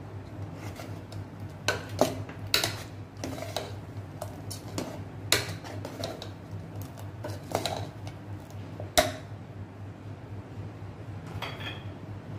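Steel ladle stirring a tomato, potato and pea mixture in an aluminium pressure cooker, clinking and scraping against the pot at irregular intervals, with the sharpest clink about nine seconds in. A steady low hum runs underneath.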